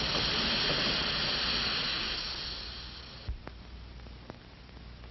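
Radio sound-effect hiss, like rushing air or steam, that fades and then stops with a soft thump a little over three seconds in, followed by a few faint ticks.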